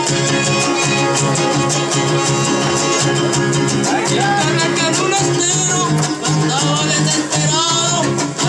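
Trío huasteco playing live: a violin carries a wavering high melody over fast strummed chords from a jarana and a huapanguera.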